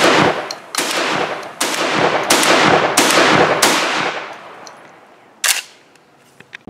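Benelli M2 Tactical 12-gauge inertia-driven semi-automatic shotgun fired five times in quick succession, about one shot every 0.7 seconds, each blast trailing off in an echo. About a second and a half after the last shot comes a single short sharp clack.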